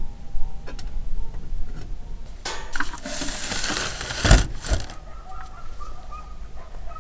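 Heavy round metal tandoor lid scraping across the rim as it is slid over the opening, then settling with two low thuds a little past four seconds in.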